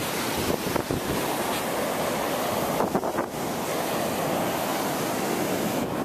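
Ocean surf breaking and washing up a sandy beach, a steady rush, with wind buffeting the microphone.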